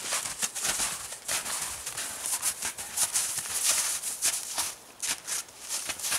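Footsteps on snowshoes crunching into coarse, crusty snow at an even walking pace, about one to two crunchy steps a second.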